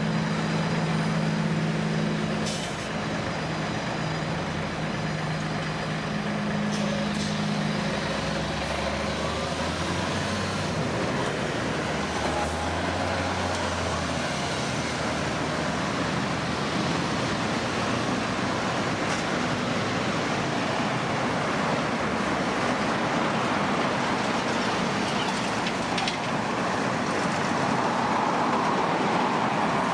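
Heavy diesel vehicles: an engine idling at first, then a steady, loud rush of vehicle noise that carries on throughout.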